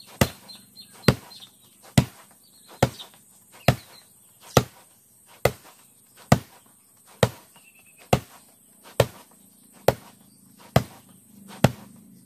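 Roundhouse kicks (mawashi geri) striking a padded kick target strapped to a tree trunk: a sharp smack a little more than once a second, fourteen evenly spaced strikes.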